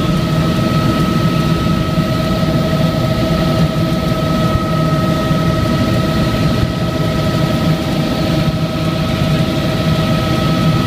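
Helicopter cabin noise in flight: engine and rotor running steadily, a dense rumble with a steady whine over it.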